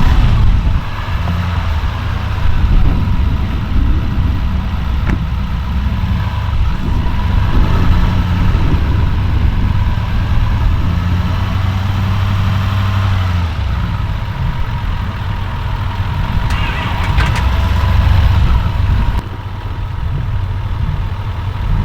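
A truck engine running and being revved, its pitch rising and falling several times, to charge a dead battery through jumper cables.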